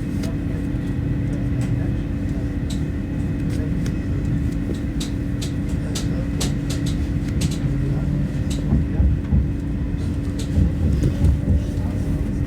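SNCB Desiro electric multiple unit heard from on board while running: a steady hum with low rumble and scattered light clicks from the wheels and car body.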